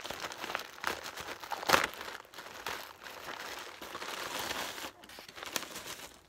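Packaging crinkling and rustling as it is handled and opened by hand, with a sharper crackle a little under two seconds in.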